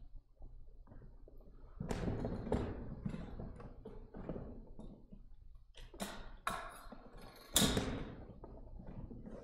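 A series of irregular knocks and thumps with rustling between them, the loudest thump about two seconds before the end.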